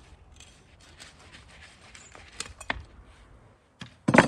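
A cleaver scraping and cutting along the tail end of a whole sturgeon on a salted metal baking tray, in a run of rasping strokes with a few sharp clicks. A loud knock comes near the end.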